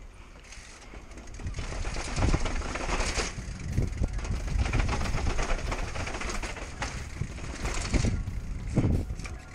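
Downhill mountain bike clattering down concrete stair steps, with the frame and chain rattling, knocks from the wheels hitting the step edges, and wind rushing over the helmet-mounted camera's microphone. Several harder knocks stand out, the loudest near the end.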